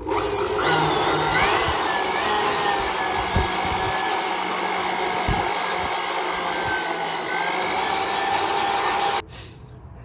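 Handheld corded electric blower switched on, its motor whine rising as it spins up, then running steadily while blowing dust out of a portable gas heater's filter; it is switched off and stops suddenly about nine seconds in.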